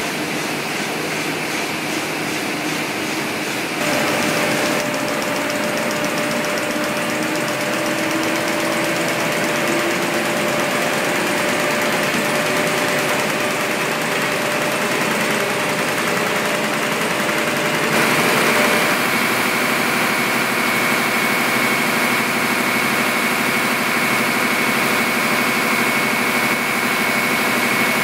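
Offset printing presses running: a steady, loud mechanical din with high whines. The sound changes abruptly about 4 and 18 seconds in, as it moves from one press to another.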